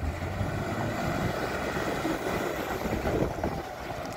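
2002 Iveco ML90E flatbed truck driving across gravel: its diesel engine running with a steady low rumble under the noise of tyres rolling over loose stones.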